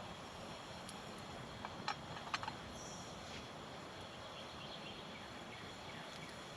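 Small campfire of sticks and fatwood burning, with a few sharp crackles and pops about two seconds in over a faint steady background.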